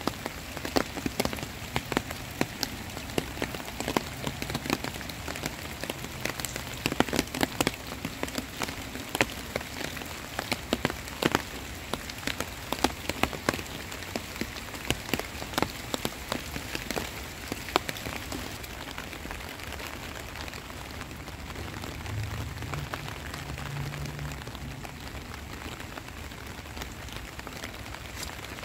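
Heavy rain falling steadily, with many sharp, close raindrop impacts pattering over the hiss; the close drops thin out after about eighteen seconds.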